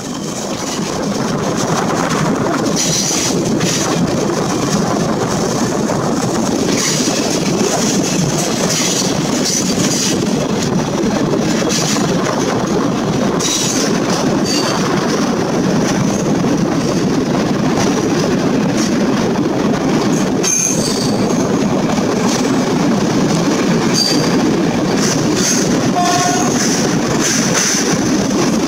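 Passenger train coaches running at speed, heard through an open window: a steady rumble of wheels on rails and rushing air, with short high-pitched wheel squeals coming and going.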